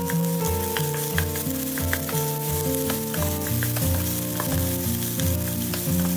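Rice frying and sizzling in a non-stick pan while a wooden spatula stirs and tosses it, with many small clicks from the spatula. Background music with a steady beat plays over it.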